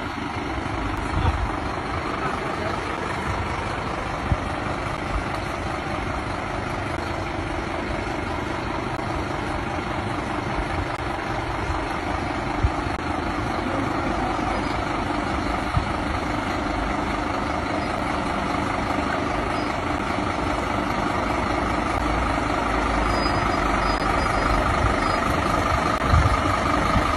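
Scania fire engine's diesel engine idling steadily while the appliance stands blocked, growing gradually louder toward the end, with a few short knocks.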